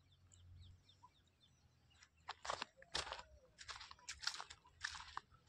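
Irregular crunching and rustling of vegetation, as someone moves through leafy crop plants, starting about two seconds in after a faint opening.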